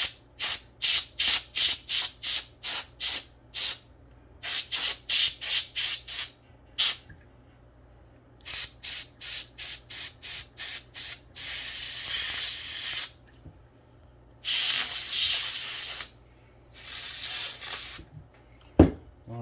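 Air blower blowing out dust inside a laptop. It starts with quick runs of short puffs of air, about three a second, and finishes with three longer blasts of a second or more.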